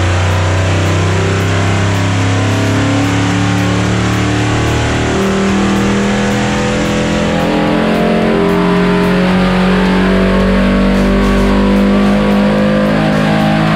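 Supercharged GM LT5 V8 running under load on an engine dyno, its revs climbing through a pull, mixed with rock music with electric guitar.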